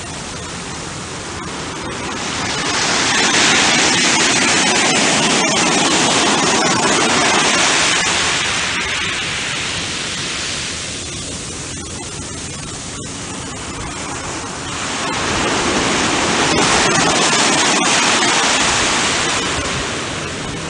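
Ocean surf washing up a sand beach: a steady rush of breaking water that swells a few seconds in, eases off around the middle, and swells again later.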